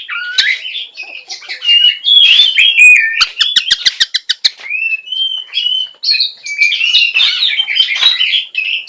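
Oriental magpie-robin (kacer) singing in the 'nembak' style: a loud, varied song of whistled and scratchy phrases, with a rapid run of sharp clicking notes, about seven a second, starting about three seconds in.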